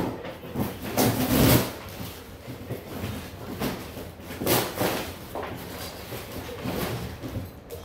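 Cardboard shipping box and plastic packaging being handled and torn open as a pro scooter is unpacked: irregular rustles, scrapes and scuffs, some louder than others.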